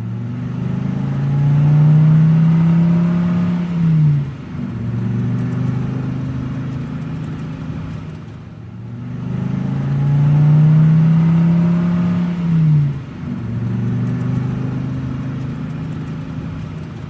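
Minibus engine running under acceleration: the engine note climbs and holds, then drops away sharply, and the same rise and fall comes round a second time.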